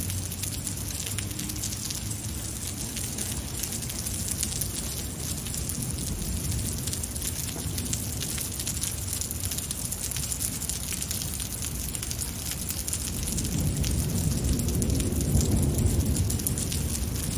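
Heavy rain pouring steadily, a dense hiss of drops on pavement and foliage. A low rumble swells over the last few seconds and becomes the loudest part.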